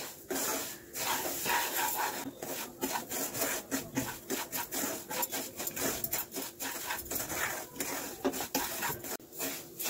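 Wooden spatula scraping and stirring semolina as it roasts in ghee in a nonstick pan, a steady series of scraping strokes.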